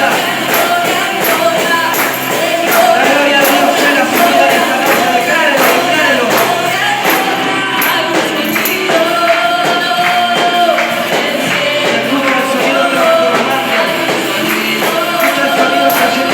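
Christian worship song playing: singing over a steady percussion beat.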